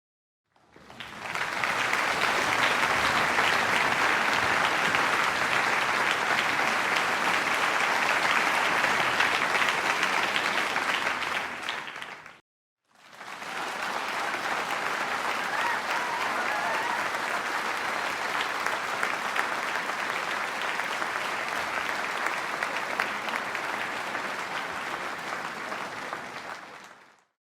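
Crowd applauding, in two separate stretches: the first rises quickly just after the start and dies away about twelve seconds in; after a brief silent gap, the second sets in and runs steadily until it fades out near the end.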